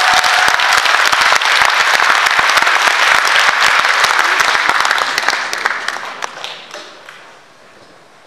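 Audience clapping in a concert hall, dense and steady, then thinning out and dying away about six to seven seconds in.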